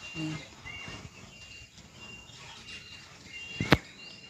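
Birds calling outdoors: a short high note repeated about twice a second, with scattered chirps. A single sharp click about three and a half seconds in is the loudest sound.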